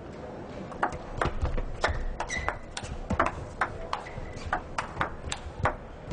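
Table tennis rally: the ball clicks off the rackets and the table about three times a second from about a second in until near the end. Some bounces carry a short ringing ping.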